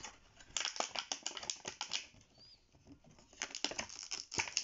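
Rapid clicking and crackling of a plastic packaging tray being handled, in two runs with a pause of about a second in the middle.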